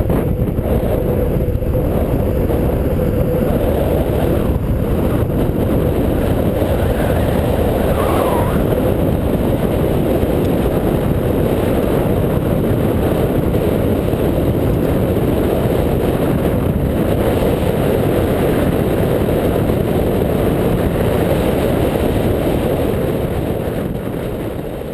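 Steady rolling roar of longboard wheels on asphalt mixed with wind buffeting the microphone while riding downhill, fading out near the end.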